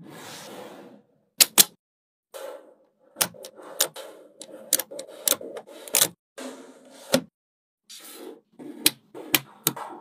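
Small magnetic balls clicking and snapping against each other as they are handled, about a dozen sharp, irregular clicks with softer rattling and sliding in between.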